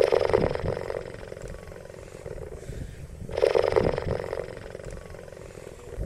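A big cat's rough, pulsing growl-like calls: two loud ones about three and a half seconds apart, each lasting about a second, with quieter rumbling between them.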